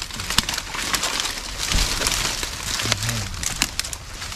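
Dry leaves and stems crackling and snapping as they are handled and broken, many sharp cracks over a steady rustle.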